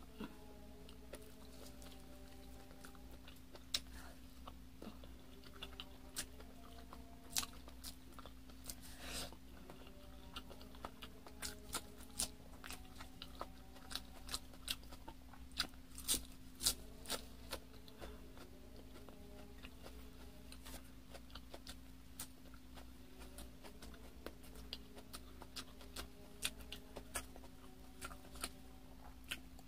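Close-up chewing and biting of glazed chicken and a crisp lettuce leaf: irregular wet smacks and clicks of the mouth, several a second, busiest in the middle stretch.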